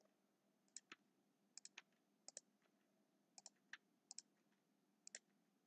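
Faint, scattered clicks of a computer keyboard and mouse during code editing: about a dozen short, irregular ticks, often in pairs.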